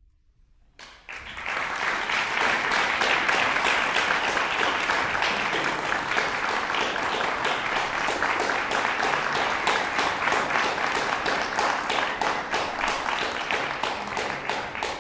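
Audience applauding, the clapping breaking out about a second in and going on steadily.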